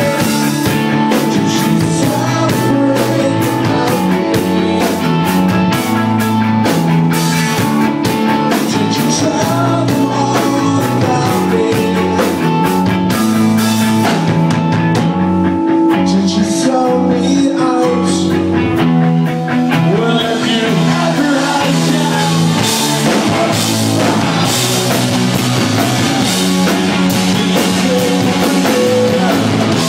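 Rock band playing live: electric guitars, bass and drum kit with a singer. The high end thins out for a few seconds midway, then the full band comes back in.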